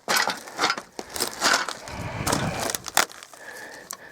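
Rummaging through clutter: irregular crunching and scraping of things being handled and stepped on, with a sharp knock about three seconds in.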